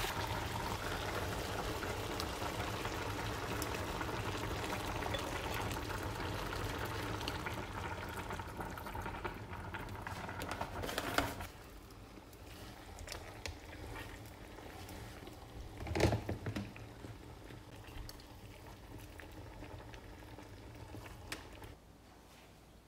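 Shrimp, mushrooms, tomato and onion simmering in a tomato sauce in a frying pan, a steady bubbling sizzle, which stops about eleven seconds in. After that it is quieter, with scattered clicks and a knock about sixteen seconds in as spaghetti is tossed in the pan.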